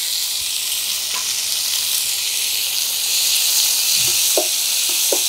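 Chopped tomato and onion sizzling in hot oil in a frying pan. From about four seconds in, a wooden spatula stirs the mixture, adding short scrapes against the pan over the sizzle.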